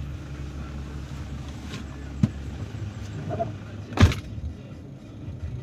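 An engine idling with a steady low hum, broken by two sharp knocks, one about two seconds in and a louder one about four seconds in.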